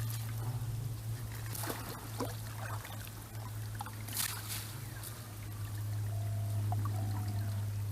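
Water splashing and trickling in a few short bursts over a steady low hum.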